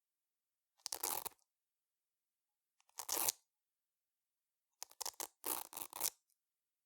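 Short strips of Velcro (hook-and-loop fastener) ripped apart, one short rip about a second in, another about three seconds in, then a stuttering run of several quick rips near the end.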